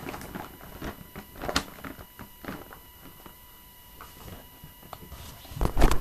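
Paper vacuum cleaner bags for a Numatic vacuum being opened out and handled: scattered rustles and crinkles of stiff paper, with a sharper knock about a second and a half in. Near the end come louder low thumps of handling noise as the phone camera is moved.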